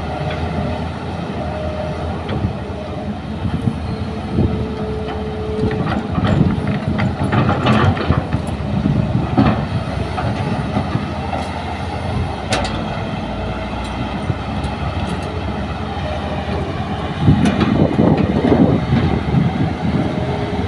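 Large tracked hydraulic excavator's diesel engine running under load as it digs into a dirt face, with sharp metallic clanks and scraping from the bucket. The engine works harder and louder near the end.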